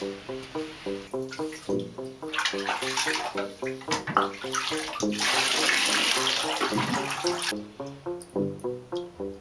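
Water rushing and splashing in a bathtub, building from about two seconds in to a loud steady rush that stops abruptly about two seconds before the end. Background music with a steady run of short, quick notes plays throughout.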